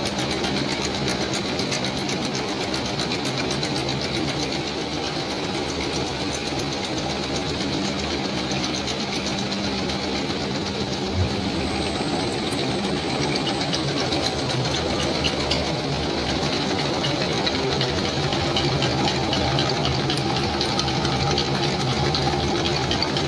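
Textile fabric-processing machinery running steadily: a continuous mechanical hum and whir with a fast, even clatter. There is a single small knock about eleven seconds in.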